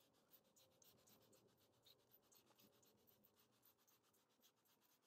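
Near silence, with only faint, rapid scratchy ticks, several a second.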